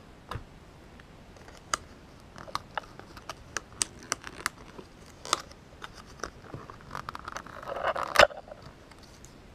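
Clear plastic packaging crinkling and clicking as it is handled and pulled off a mini disc-bound planner: scattered sharp ticks, then a denser rustle with a loud snap about eight seconds in.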